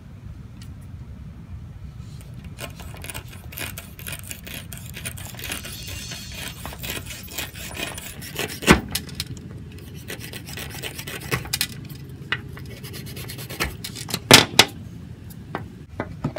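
A knife blade sawing back and forth through the bristles at the base of a vintage shaving brush's knot, a steady scratchy rasping. Two sharp clicks stand out, one about halfway through and one near the end.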